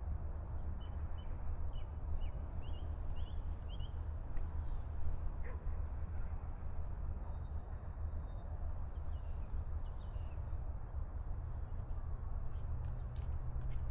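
Small birds chirping faintly, with a run of short quick chirps in the first few seconds and a few more midway, over a steady low rumble.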